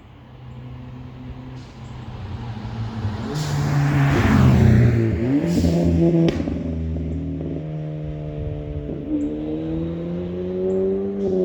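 Ford Fiesta ST's turbocharged 1.6-litre four-cylinder accelerating hard through an aftermarket cat-back exhaust, the revs climbing. Its pitch breaks and drops about six seconds in at a gear change, then climbs steadily again.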